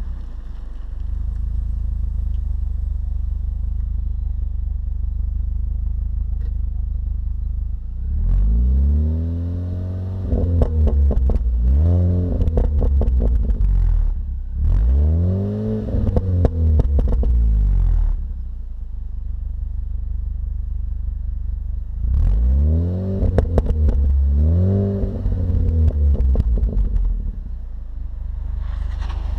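Mini Cooper S R53's supercharged 1.6-litre four-cylinder, on its stock exhaust, idling steadily and then revved in short blips, each rising and falling in pitch. The blips come in two groups, with a stretch of idle between them, and a crackle sounds over the revs.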